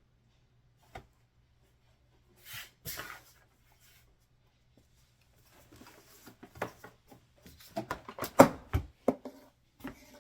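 Heavy objects being handled and set down on a cutting mat to hold it flat: a single knock about a second in, a short rustling swish near three seconds, then a run of knocks and clicks through the second half, loudest about eight seconds in. A faint low hum lies under it throughout.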